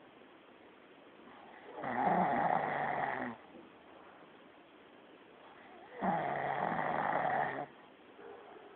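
A sleeping man snoring loudly, two snores about four seconds apart, each lasting about a second and a half, with quiet breathing between them.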